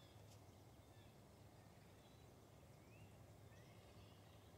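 Near silence: faint outdoor ambience with a steady low hum and two faint, short rising bird chirps a little past the middle.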